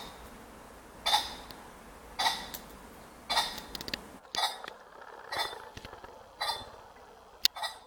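Male ring-necked pheasant giving short, harsh calls, repeated about once a second.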